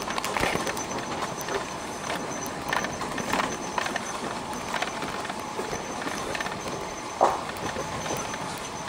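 Vehicle driving over a rough, rutted dirt track: steady running noise with irregular knocks and rattles as it goes over the bumps, and one brief, louder sharp sound about seven seconds in.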